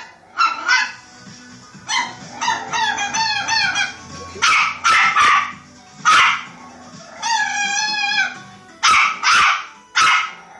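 Pomeranian confined in a crate barking in short, sharp yips, mostly in pairs, broken twice by longer wavering, whining cries that rise and fall in pitch: a confined dog's protest.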